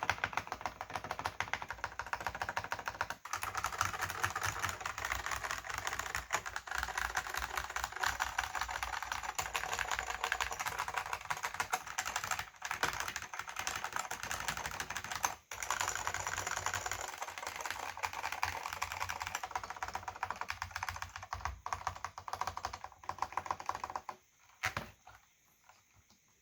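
Fast continuous typing on a Silicon Graphics Granite keyboard with orange Alps SKCM switches and thin PBT keycaps: a dense run of rapid key clicks that sounds hollow, with little low end. The typing stops near the end, leaving a couple of last keystrokes.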